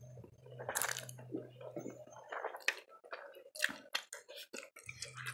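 Close-miked mouth sounds of a person eating instant noodles: irregular wet smacking and chewing, with a slurp of noodles about a second in. A low steady hum runs underneath and drops out for a few seconds in the middle.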